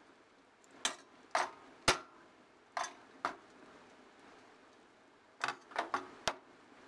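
Metal potato masher clinking against the stainless steel pan while mashing cooked fava beans: sharp clinks, five in the first half and four more near the end.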